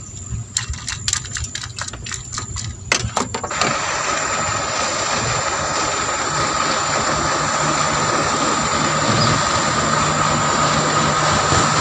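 A few sharp clicks and knocks, then about three and a half seconds in an engine comes on abruptly and runs steadily, slowly growing louder.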